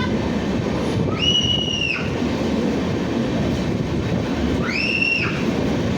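Train running with a steady low rumble, and two high-pitched wheel squeals of about a second each, one near the start and one near the end.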